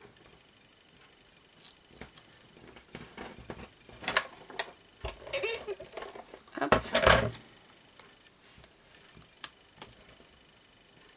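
ATG adhesive tape gun laying tape on small folded paper circles: two short noisy runs about four and seven seconds in, the second louder, amid a few light clicks and paper handling.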